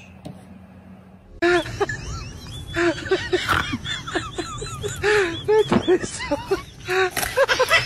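Laughter with a short click at the start: after about a second and a half of low hum, high-pitched laughing breaks in as quick, repeated bursts that sometimes overlap.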